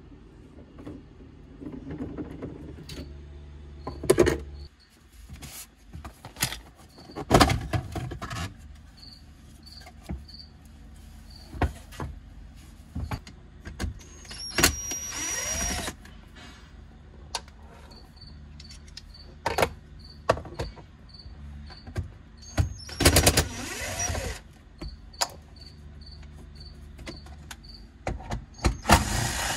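Cordless drill-driver backing out the center-console screws and bolts in three short runs, each starting with a rising whine. Between them, sharp clicks and clatter of plastic trim being pried loose and handled.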